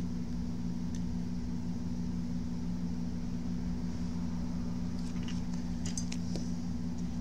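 Steady low hum of bench equipment, with a few light clicks and rattles of small tools and leads being handled about five to six seconds in.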